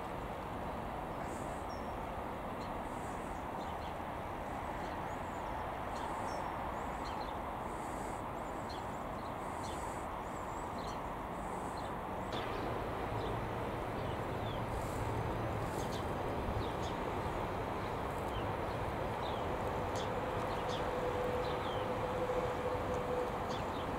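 Diesel train noise at the lineside, with small birds chirping throughout. From about halfway a deeper hum from a Colas Rail Class 56 diesel locomotive comes in, and a steady whine joins near the end.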